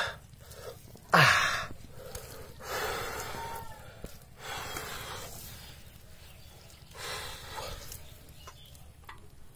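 Hands scraping and digging through wet mud in several short spells while pulling an eel out of its burrow. A person gives a loud breathy gasp about a second in.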